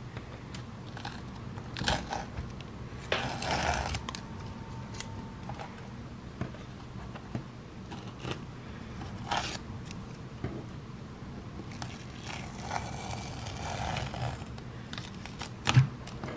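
Handling noise from a stretched canvas being gripped and turned by hand on a wooden tabletop: scattered scrapes and rustles, with one sharp knock a little before the end, the loudest sound, all over a steady low hum.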